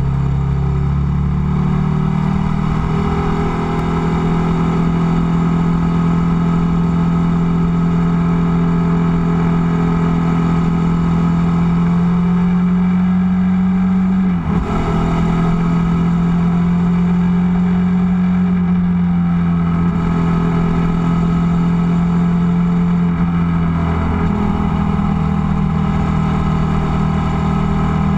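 Ducati Multistrada's L-twin engine running at cruising speed, its note mostly steady, with a brief sharp dip about halfway through like a gear change and small pitch shifts near the start and later on. Low wind rumble on the microphone underneath.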